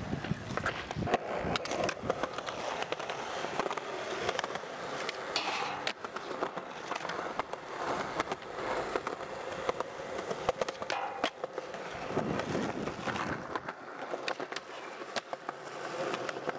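Skateboard wheels rolling over concrete with a continuous rumble, broken by several sharp clacks of the board against the ground.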